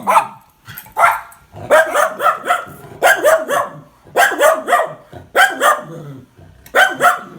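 Two schnauzers barking at another dog outside, sharp barks coming in quick runs of two to four, about once a second.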